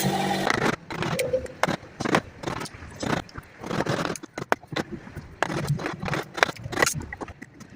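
A power tool stops running about half a second in, followed by irregular knocks, clicks and scrapes of wooden workpieces being handled and fitted together.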